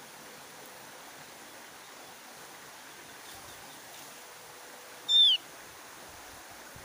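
Javan grey-throated white-eye (opior Jawa) giving a single short, loud call that slides downward, about five seconds in, over a steady hiss.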